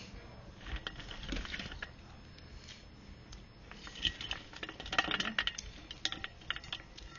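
Spoon and chopsticks clicking and clinking against a noodle-soup bowl while eating, in two bursts of quick small knocks.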